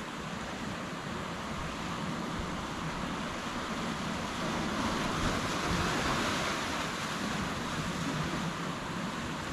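Ocean surf washing on the shore, a steady rush that swells about halfway through and then eases off.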